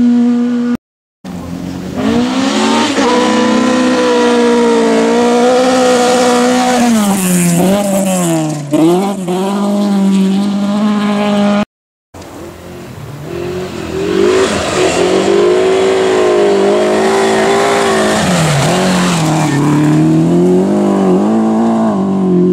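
Rally cars driven flat out on a gravel stage, engines at high revs rising and falling repeatedly as the drivers shift and lift for corners. The sound cuts out briefly twice, about a second in and about halfway through.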